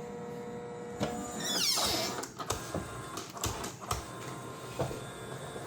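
Creality CFS filament changer's motor running with a steady hum, then a whine that falls steeply in pitch about a second and a half in, followed by scattered mechanical clicks. The unit keeps cycling and rotating back and forth without stopping, which the owner takes as a fault.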